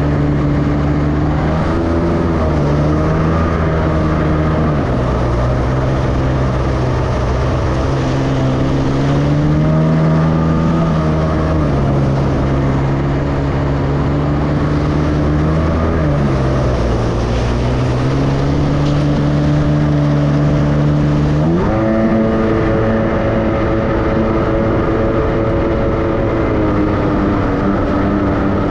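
Jet ski engine running under way, its pitch climbing and dropping as the throttle is worked, with a sharp jump in revs about three quarters through.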